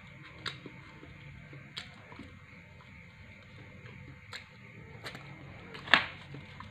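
Someone eating pizza: quiet chewing with a few short sharp clicks and light knocks scattered through, the loudest a click about six seconds in.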